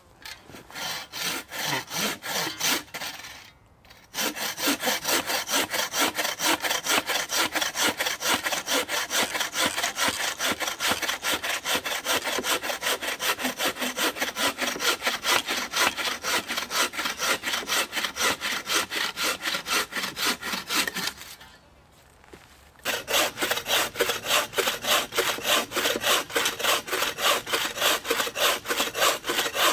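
Wooden-framed bow saw cutting through a mossy dead log with rapid, even back-and-forth strokes. The sawing pauses briefly about four seconds in and again about three-quarters of the way through.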